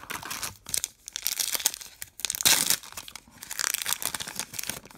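Trading card pack wrapper being torn open and crinkled in a run of crackling bursts, loudest about halfway through.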